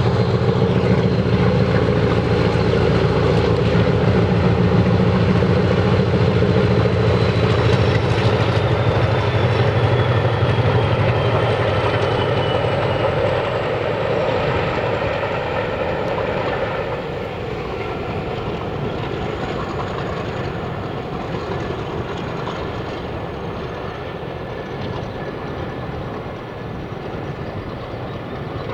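Diesel-electric locomotive engine working hard under load as the train passes, with a high turbocharger whistle that slides down in pitch. The heavy engine rumble is loudest for the first half, then fades away as the locomotive moves off.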